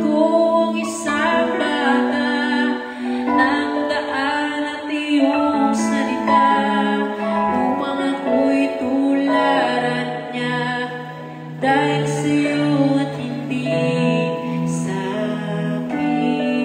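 Music: a slow, gentle song with singing over an instrumental accompaniment.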